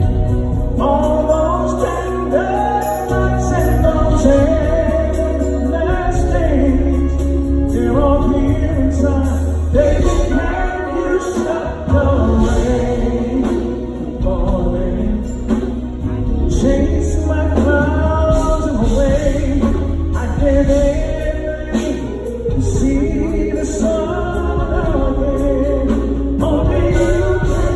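Live concert music heard from the audience: a band playing a slow R&B ballad with heavy bass, under a wavering, melodic vocal line.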